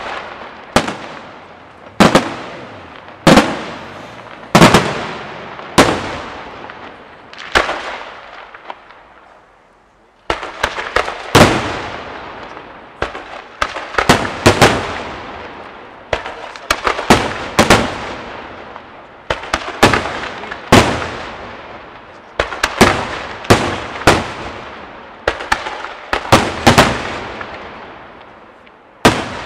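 Aerial firework shells bursting one after another, each sharp bang trailing off in echo. There is a brief lull about eight seconds in, then the bursts come thicker and faster, several close together.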